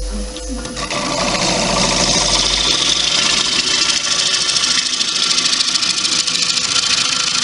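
Turning gouge cutting the inside of a wet cherry-wood bowl blank spinning on a wood lathe: a continuous, rapid chattering cut that grows louder about a second in, with a steady hum underneath.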